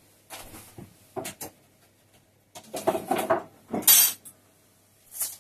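Dishes and kitchen utensils knocking and clinking on a worktop as things are set down and picked up: a string of short knocks and clinks, the sharpest clink a little before four seconds in.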